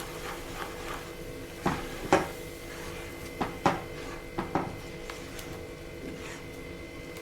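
A spoon clacking and scraping against a cooking pan while a thick mixture of roasted gram flour and milk is stirred. There are several separate knocks, a pair of them about two seconds in and more around three and a half to four and a half seconds in.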